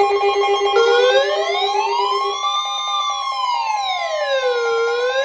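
Electronic siren wailing, its pitch rising and falling slowly about once every four seconds, layered over steady electronic alert tones; a lower pulsing tone drops out about two seconds in. It is the attention signal at the start of an emergency alert for a flash flood warning.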